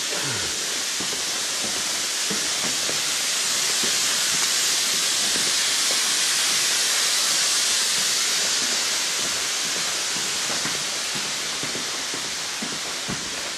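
A steady, loud hiss that swells towards the middle and eases off again, with faint scattered knocks.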